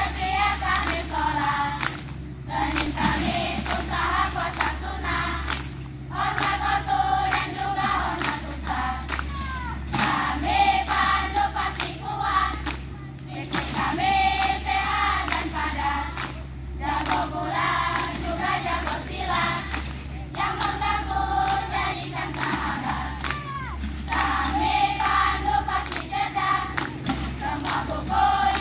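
A large group of scouts singing and chanting a scout cheer-song (yel-yel) in unison, in phrases broken by short pauses every few seconds.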